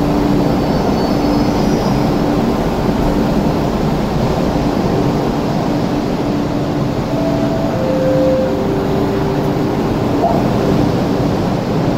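MTR East Rail Line electric train pulling away from the platform, its running noise a steady rumble with a continuous hum. From about seven seconds in, the traction equipment gives a few short whining tones, each a step lower than the last, as the train gathers speed.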